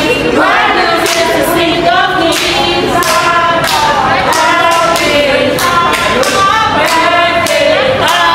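Cold Stone Creamery staff singing their birthday song together as a group, with hand claps keeping a steady beat.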